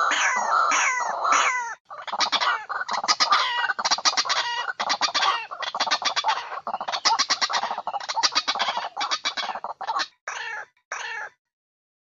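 White-breasted waterhen calling loudly. It starts with a string of falling croaking notes, then after a short break gives long runs of rapid stuttering notes, and ends with two short calls a little before the end.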